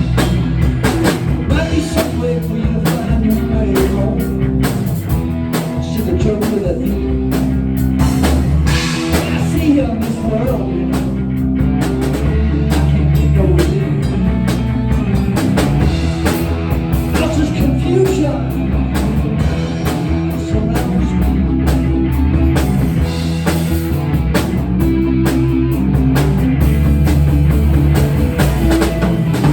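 Rock music with a drum kit and guitar, loud and continuous.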